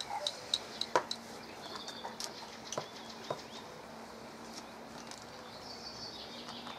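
A few light clicks and taps of a paintbrush being worked in a small paint pot, with faint bird chirps and a low steady hum underneath.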